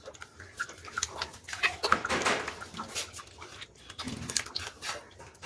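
A hand squeezing and churning thick white paint in a bucket, giving a run of irregular squelches that are loudest about two seconds in.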